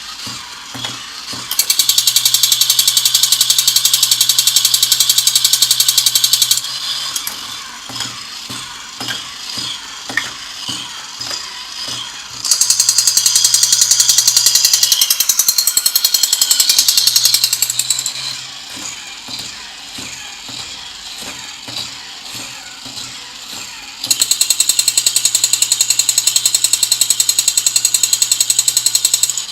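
Battery-operated Spider-Man toy gun's rapid-fire rattle, sounding in three bursts of about five seconds each with faint clicks between them.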